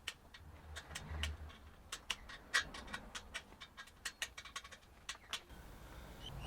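Faint, irregular light clicks and taps, a few a second, from small hard parts being handled during hand work.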